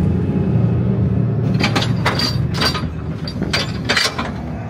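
Lowrider hydraulic suspension being worked on a Cadillac coupe: a run of about eight sharp metallic clanks and clicks over some three seconds as the car drops, over a low steady rumble.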